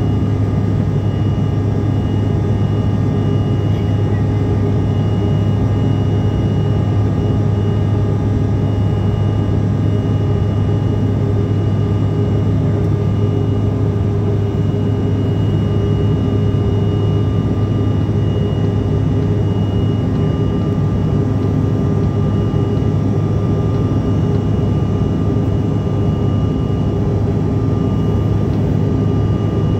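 Cabin noise of a CRJ-700 regional jet climbing after takeoff: the rear-mounted turbofan engines and airflow give a steady drone with a low rumble and several constant whining tones.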